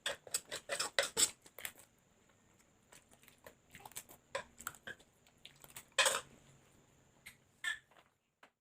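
Close-up eating sounds of instant fried noodles: a busy run of short clicks and smacks from cutlery on a dish and from chewing, with a louder clatter about six seconds in, stopping about eight seconds in.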